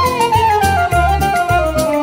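Background music: a woodwind-like melody stepping downward over a steady beat and bass.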